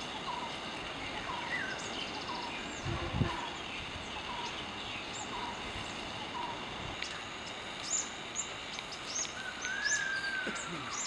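Several wild birds calling over a steady hiss of outdoor ambience: a short chirp repeated about every three-quarters of a second, then quick high chirps and one drawn-out whistled note near the end. A single low thump about three seconds in.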